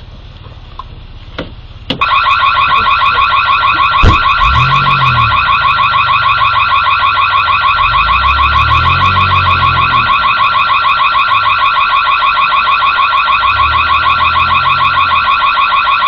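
A loud electronic security alarm cuts in abruptly about two seconds in and keeps sounding as a high, rapidly pulsing tone with several overtones. Under it there is a sharp bang about four seconds in, and a car engine revs as the car pulls away.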